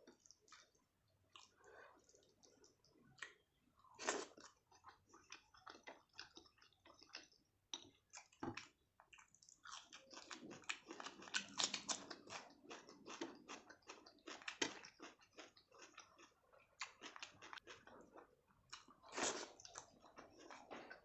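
Close-miked mouth sounds of a person eating rice with egg curry and baingan bharta: wet chewing with many quick smacks and clicks, busiest in the middle stretch.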